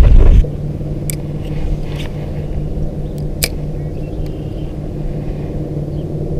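Boat motor running steadily with a low, even hum. A loud low rumble cuts off suddenly about half a second in, and a few short sharp ticks come through over the hum.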